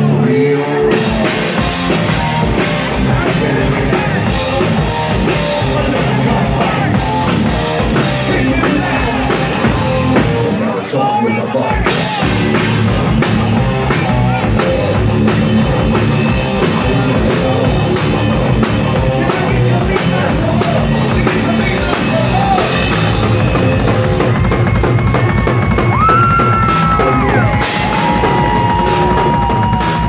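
Live rock band playing loud: a drum kit and electric guitars with bass, the band briefly dropping out about eleven seconds in, and long held notes near the end.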